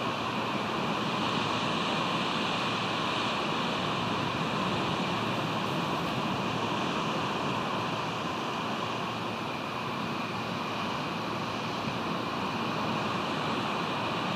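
Steady rush of ocean surf and wind on the nest camera's microphone, even and unbroken.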